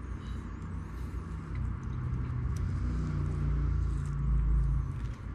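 A low mechanical rumble with a steady low hum, growing louder to a peak about four seconds in, with a few faint clicks.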